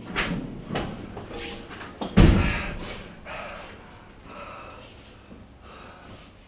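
Staged fight between actors: a couple of sharp hits in the first second, then a heavy thud about two seconds in, the loudest sound, followed by fainter scuffling.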